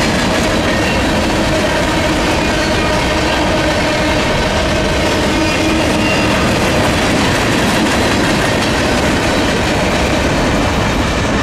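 Freight train cars rolling past at close range: a steady rumble of steel wheels on the rails.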